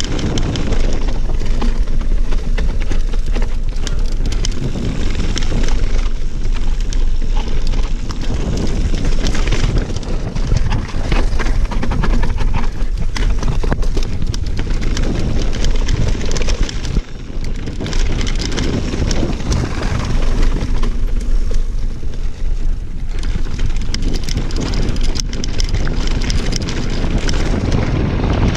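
Mountain bike riding down a rough cobblestone trail: tyres and frame rattling and knocking constantly over the stones, with wind buffeting the microphone.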